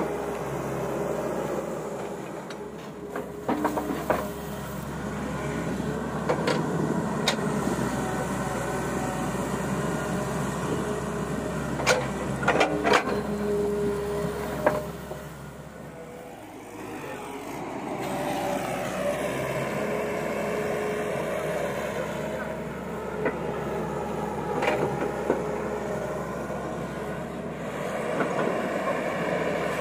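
Tata Hitachi EX200LC excavator running under load while digging, its diesel engine and hydraulics working steadily, with several sharp clanks of the steel bucket against rock and dirt. About halfway through the engine note drops off briefly, then climbs again.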